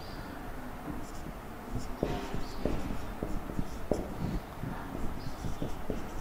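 Marker writing on a whiteboard: a run of short, irregular squeaks and taps of the tip against the board.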